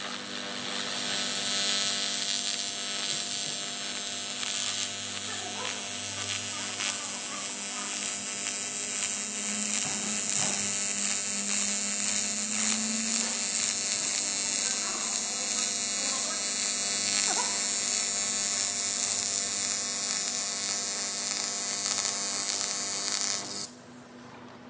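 AC TIG welding arc on aluminium: a steady electric buzzing hum with a high hiss, which cuts off near the end as the arc is stopped.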